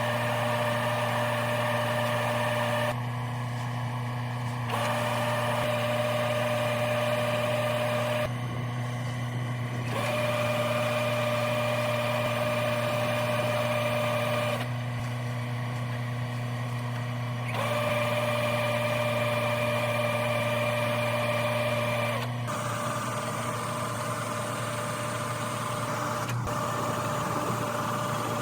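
Combine harvester engine and machinery running steadily with a low hum and a high whine. The whine drops out for a second or two several times, then comes back.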